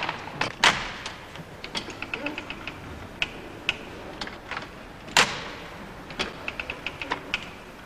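Model of Thimonnier's chain-stitch sewing machine being worked, its mechanism making irregular clicks and knocks, with short quick runs of light ticks and two louder knocks, about half a second in and about five seconds in.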